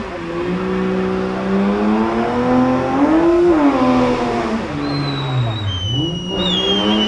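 BMW E30 325i's straight-six engine held at high revs through a burnout, the rear tyres spinning; the revs wander up and down, dip sharply about six seconds in and climb straight back. A high tyre squeal joins over the last two seconds.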